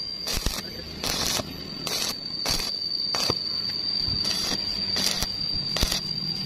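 Stick-welding arc on rebar, struck in short repeated bursts: a crackling spit about every half second to second as the electrode is touched to the joint and pulled away, over a steady high-pitched whine.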